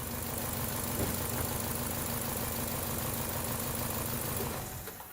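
2012 Chevy Cruze four-cylinder engine idling rough, misfiring on cylinder number 2. The engine noise stops near the end.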